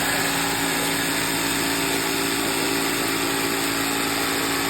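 A handheld power tool's electric motor running steadily at an even pitch.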